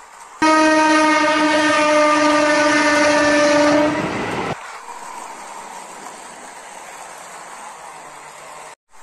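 A train horn sounding one long, steady blast of about three and a half seconds that starts suddenly and cuts off, followed by a much fainter steady running noise.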